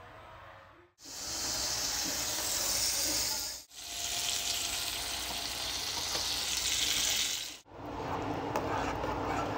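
Salmon fillets sizzling in hot oil in a nonstick frying pan, a loud hiss heard in two stretches split by a cut. About two seconds before the end it gives way to a spoon stirring shredded cheddar into mashed potatoes in a pot.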